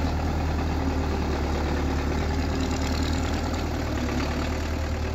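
Belarus tractor's diesel engine running steadily, a low even drone with no revving.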